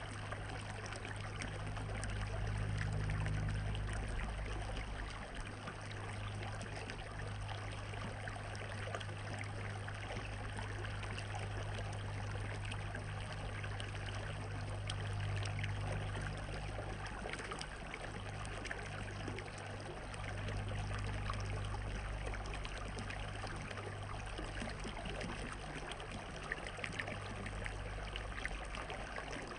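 Running water trickling and splashing steadily, with a low steady hum underneath that swells and fades.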